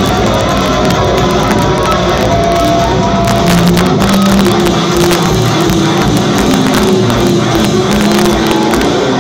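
Live rock band playing at full volume: distorted electric guitars, vocals and a drum kit, heard from within the crowd.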